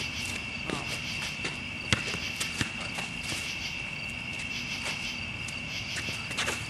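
Steady high-pitched chorus of crickets, with a few sharp knocks from play on the court, the loudest about two seconds in.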